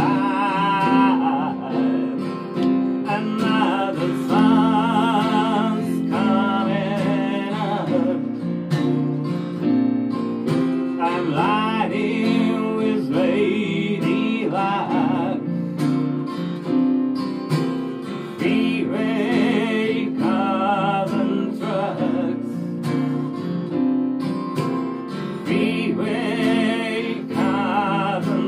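A man singing with vibrato over a strummed acoustic guitar and keyboard, played live as a vocal-and-keyboard duo.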